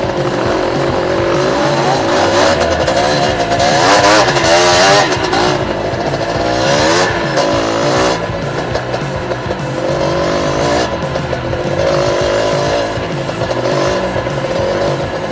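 Two-stroke Yamaha DT 125 dirt bike engine revving up and down unevenly as it is ridden over rough ground, with background music.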